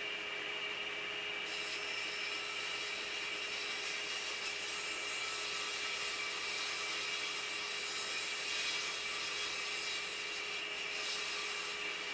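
Shopsmith Mark V running as a table saw, cutting through a thin plywood panel. A steady machine hum sounds throughout, and the hiss of the blade in the wood starts about a second and a half in.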